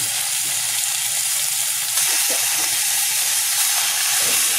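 Thinly sliced pork sizzling steadily as it fries in a hot, lightly oiled saucepan while it is stirred with wooden chopsticks.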